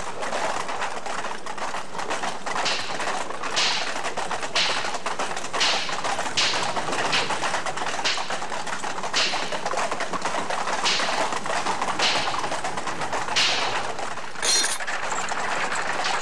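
Horse-drawn carriage moving along a wet street: irregular hoof clops, roughly one a second, over a steady dense noise of wheels.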